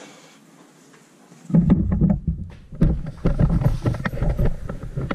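Handling noise on the camera's microphone as the camera is picked up and moved: a burst of rumbling bumps and rubbing that starts suddenly about a second and a half in and carries on.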